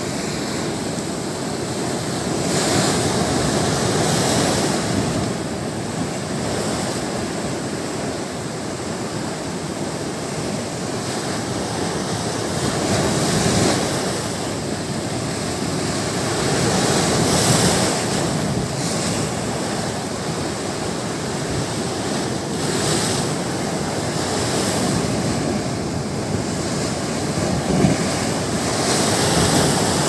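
Heavy surf breaking and washing along a concrete seawall: a continuous rushing of foaming water that swells every few seconds as larger waves hit.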